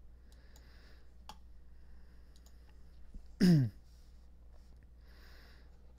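A man's short, loud vocal sound falling in pitch, about three and a half seconds in, between soft breaths. A few faint clicks of a pen or mouse on a computer are also heard while he corrects a number on a digital whiteboard.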